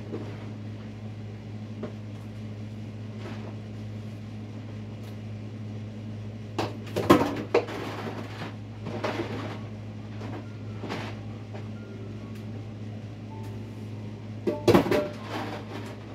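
Dishes and utensils knocking and clattering in a kitchen sink as they are washed by hand, in a few short bursts, the loudest a little before halfway and near the end. A steady low hum runs underneath.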